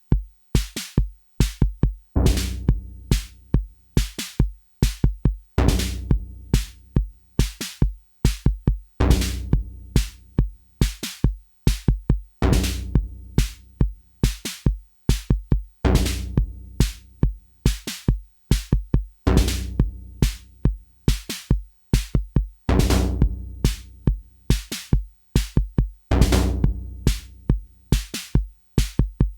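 Electronic drum pattern from a home-built TR-606-style drum machine, played by a Moon Modular trigger sequencer. It is a steady rhythm of short hits. About every three and a half seconds a long, low pitched note sounds and slowly fades.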